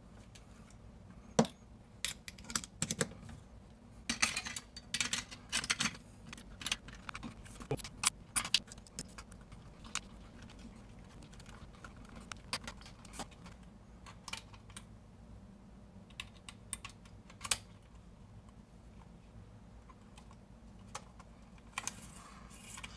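Small plastic and metal clicks and rattles from handling a digital tape measure as its housing is fitted back together and screwed shut with a screwdriver. The clicks are scattered, with a busy stretch about four to nine seconds in, then sparser.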